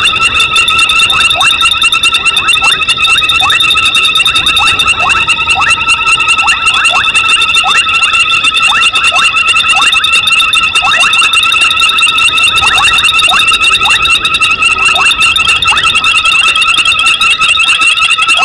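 Night chorus of many frogs calling: several high, pulsing trills held continuously and layered together, with short rising chirps from other callers about one or two a second.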